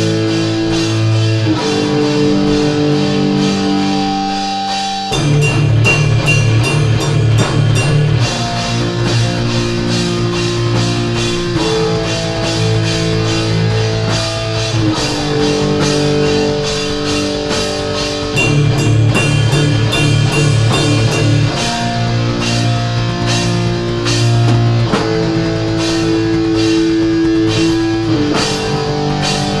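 Mincecore grindcore recording: distorted electric guitar chords changing every second or two over rapid drumming, getting heavier and louder about five seconds in.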